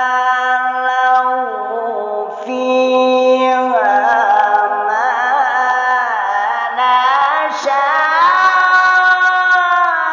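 A male qari's solo Quran recitation in melodic tilawah style: a long, drawn-out, ornamented vocal phrase with wavering pitch, climbing higher about four seconds in and again near the end.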